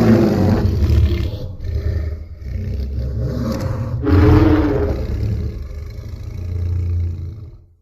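Custom dinosaur sound effect for the Vastatosaurus rex: one long, deep roar that swells a second time about four seconds in and fades out near the end.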